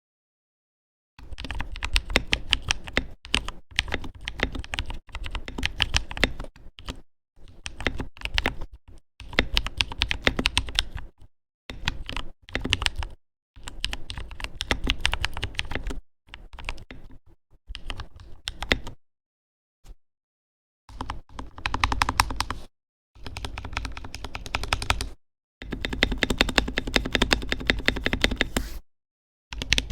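Typing on a Drop Alt mechanical keyboard with lubed Holy Panda tactile switches: fast runs of key presses in bursts of a second or few, broken by short pauses.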